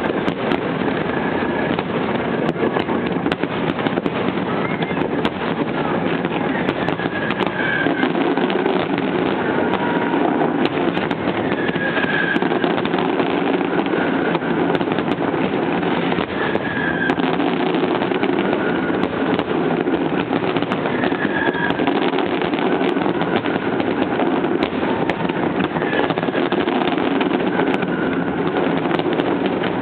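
Fireworks finale: a continuous barrage of bursts and crackling that merges into a steady rumble, with many sharp cracks standing out.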